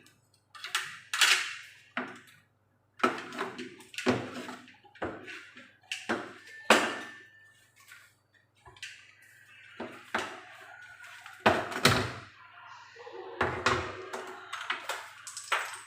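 Irregular sharp plastic clicks and knocks, about twenty of them, as the parts of an Electrolux washing machine's door handle and latch are handled and tried.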